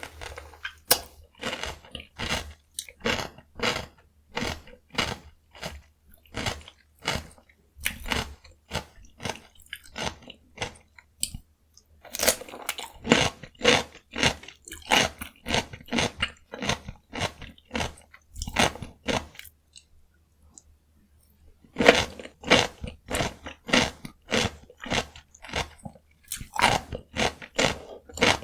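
Close-miked, crisp crunching and chewing of raw cucumber dipped in gochujang, a steady run of about two to three crunches a second, with a pause of about two seconds some two-thirds of the way through.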